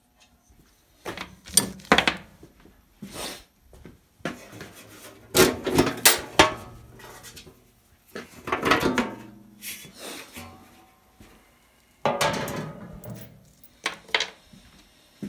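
Clunks, knocks and scraping of bandsaw parts being handled and set down during disassembly, coming in several separate bursts.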